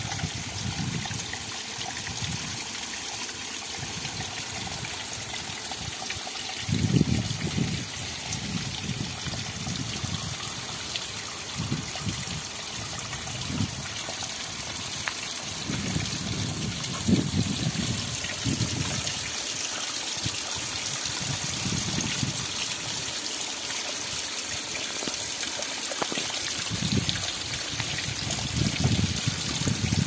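Small river waterfall trickling and splashing steadily over moss and roots onto stones. Irregular low rumbles come and go, about 7 seconds in, again mid-way and near the end.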